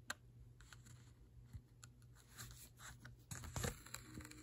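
Faint hand-sewing sounds: a needle and thread drawn through two layers of fabric for a whip stitch, with scattered light ticks and a brief scratchy rustle about three and a half seconds in as the thread is pulled snug.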